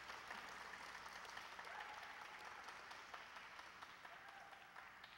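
Faint, scattered applause and clapping from a small audience, dying away near the end.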